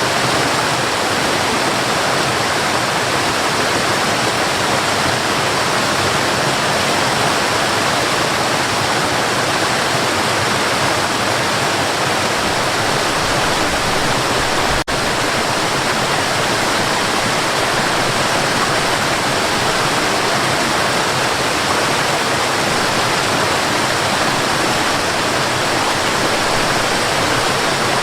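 Mountain river rushing steadily, a dense, even water noise, with a momentary dip in level about halfway through.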